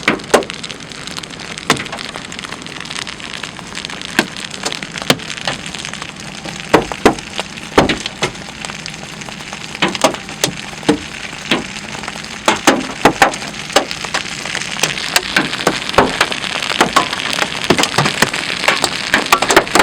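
Large hailstones and rain hitting a storm-chase vehicle: a steady hiss of rain with sharp, irregular cracks of hail strikes, coming thicker in the second half.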